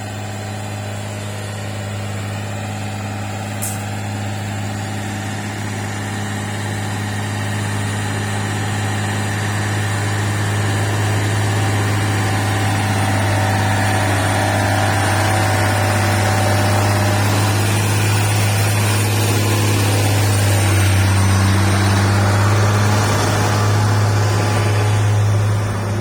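Heavy truck's diesel engine running steadily under load on an uphill climb, a deep even drone that grows gradually louder.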